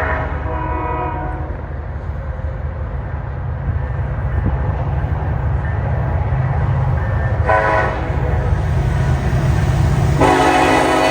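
Diesel freight train rumbling past while its locomotive horn sounds: a horn chord trailing off just after the start, a short blast about two-thirds of the way in, and a longer blast starting near the end.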